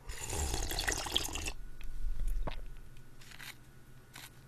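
Slurping pork soup broth straight from the bowl for about a second and a half, then a swallow and faint mouth sounds.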